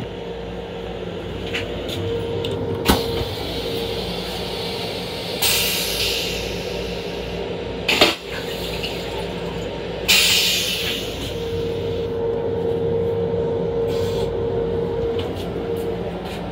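Steady rumble and hum of an LIRR M7 railcar heard inside its restroom, with a few sharp knocks, the loudest about eight seconds in, and two short hisses of air, about five and ten seconds in.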